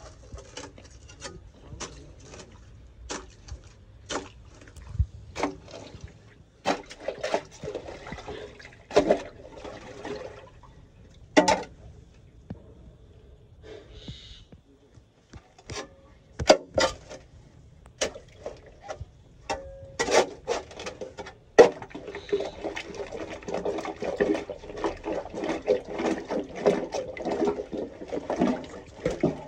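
Thick sewage sludge squelching and sloshing as a short wooden-handled spade scrapes and scoops it out of a root-choked manhole, with irregular sharp knocks and scrapes of the blade. The wet churning gets denser and more continuous over the last several seconds.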